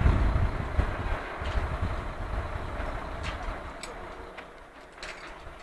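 Low, irregular rumble of wind buffeting the microphone, strongest at first and fading, with a few light clicks about halfway through.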